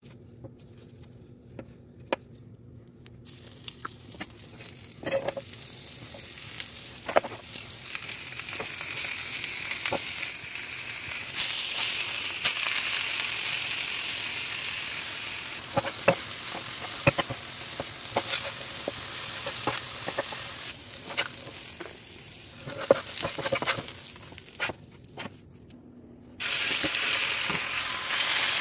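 Sliced onions, bell peppers and mushrooms sizzling on a hot flat griddle, with the clicks and scrapes of a spatula turning them. The sizzling comes up about five seconds in, drops back briefly near the end, then jumps louder as raw chopped steak goes onto the griddle.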